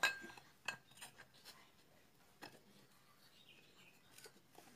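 Faint metallic clicks and light knocks of a Shimizu electric water pump's motor housing and end cover being handled and pressed together during reassembly. The sharpest click comes right at the start, followed by a few scattered small taps.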